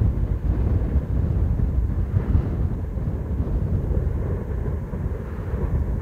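Wind buffeting the microphone: a low, gusty rumble that rises and falls unevenly.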